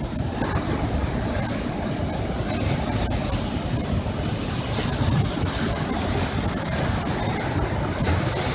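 Ocean waves breaking and washing against coastal rocks: a continuous rush of surf with no single clear crash. Under it runs a heavy, steady low rumble typical of wind buffeting a phone's microphone.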